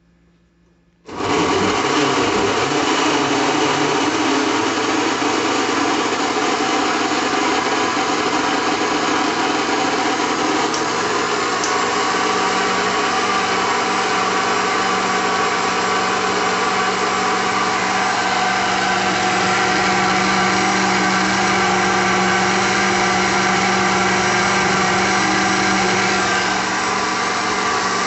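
1988 Arno Triton (Pro) blender's motor switched on about a second in, starting abruptly and running loud and steady, easing slightly near the end.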